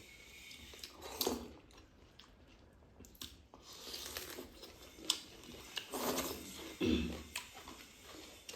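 Close-up eating sounds: chewing with irregular crunches and wet smacks from a meal of rice and chicken curry, a few louder smacks about a second in and around six to seven seconds in.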